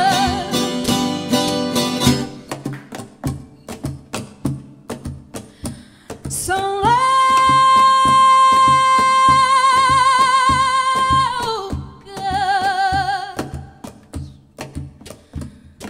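Fado song: a woman's voice singing with wide vibrato, holding one long note for about five seconds in the middle and a shorter one after it. Under her is a steady beat of plucked Portuguese guitar, classical guitar and Cuban tres, with percussion, and the strings carry the beat alone between her phrases.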